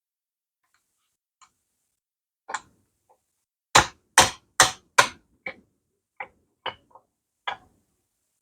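Hand tool striking during engine work, likely a hammer: one strike about two and a half seconds in, then four loud blows in quick succession, a little under half a second apart, starting near four seconds, then several lighter, more widely spaced taps.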